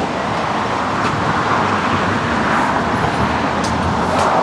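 Passing road traffic: steady tyre and engine noise of a vehicle going by, swelling up just before and holding level, with a few light clicks.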